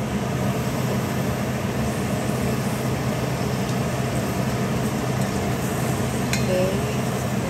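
Julienned carrots and beef frying in oil in a pot, a steady sizzle over a low steady hum. A spatula stirs through the pan near the end.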